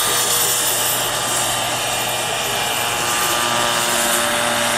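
Turbine-powered radio-controlled scale Agusta 109 helicopter in flight: the model turbine engine whines steadily over the noise of the rotor.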